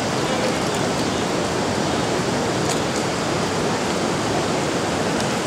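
Steady rushing of river water, with one faint short click a little past halfway.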